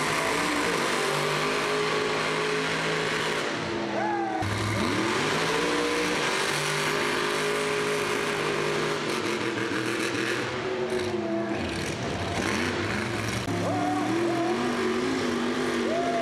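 Big V8 engines of lifted trucks running at high revs under load as they pull against each other on a tow strap. The pitch climbs and then holds, several times over.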